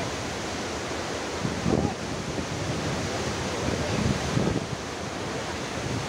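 Athirapilly Falls, a large waterfall, rushing steadily: a dense, even wash of falling water. Gusts of wind buffet the microphone now and then, with low rumbles about two seconds and four seconds in.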